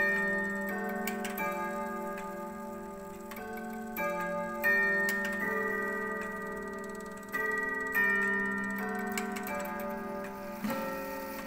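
Brass chime rods of an antique Peerless cabinet clock being struck by the movement's hammers, playing a slow chime melody: single notes of different pitch about a second apart, each ringing on over the next. The clock's ticking runs faintly beneath.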